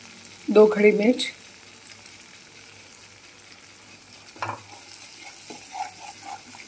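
Masala paste sizzling gently in oil in a kadhai, with a spatula scraping against the pan about four and a half seconds in and a few lighter scrapes after.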